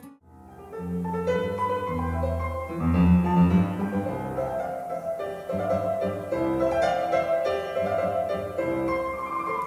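Instrumental music with piano and low bowed strings, with held bass notes. It starts about half a second in, after an abrupt cut from the previous guitar piece.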